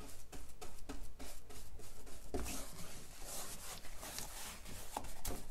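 Paintbrush stroking chalk paint onto the side of a pine chest of drawers: a run of short, scratchy brush strokes at an uneven pace.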